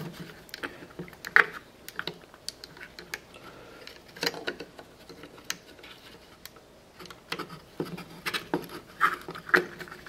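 Scattered small plastic clicks and scratches as a dental hook pries the snap-on button caps off a 2000 Chevrolet Suburban's driver-door power window and lock switch panel, the sharpest click about a second and a half in and several more near the end.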